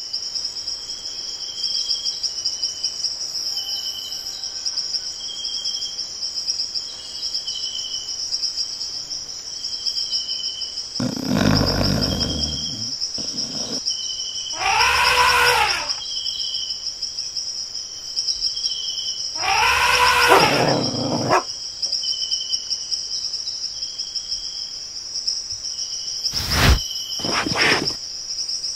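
Steady high insect drone with a short chirp repeating about once a second. Loud wild-animal cries break in at about eleven, fifteen and twenty seconds in, and two sharp knocks come near the end.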